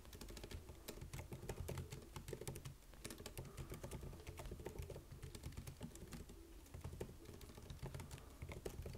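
Typing on a computer keyboard: a faint, quick, irregular run of key clicks as a line of code is entered.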